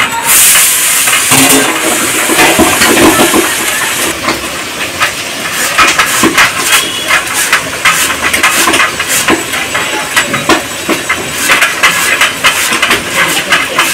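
Raw potato grated by hand on a flat metal grater: a run of quick, rasping scrapes, one after another.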